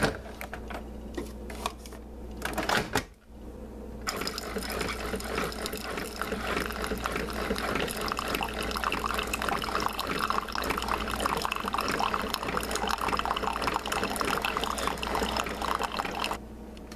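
Single-serve coffee maker brewing into a ceramic mug: a few clicks as its buttons are pressed, then from about four seconds in the pump runs and coffee pours steadily into the mug. The brewing cuts off suddenly near the end.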